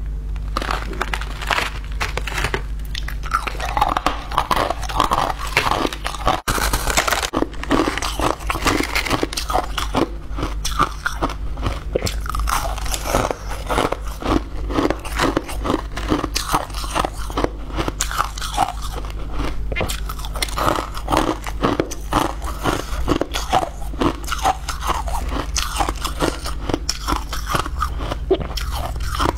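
Crushed ice being bitten and chewed, a dense, continuous run of crisp crunches close to the microphone over a steady low hum.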